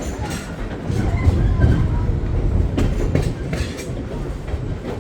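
Train running on the rails, with a steady low rumble and wheels clacking irregularly over the track.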